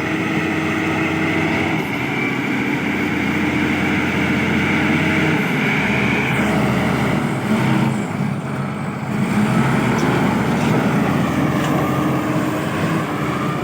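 LiuGong B160 crawler bulldozer working, its diesel engine running steadily under load with a high steady whine over it. The engine sound dips briefly about eight seconds in.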